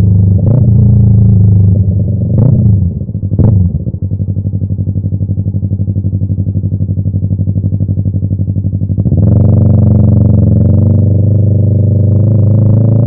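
Yamaha YZF-R3's 321 cc parallel-twin engine through an M4 aftermarket exhaust: three short throttle blips in the first few seconds, then a lower, evenly pulsing idle for about five seconds. About nine seconds in it picks up again, rising in pitch near the end as the bike pulls away.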